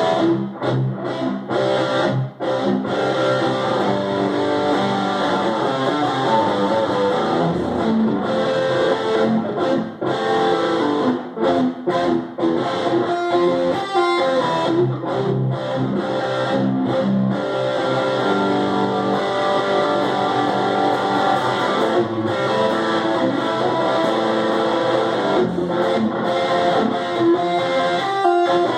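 Electric guitar played in a continuous run of notes and chords, with a few short breaks between phrases.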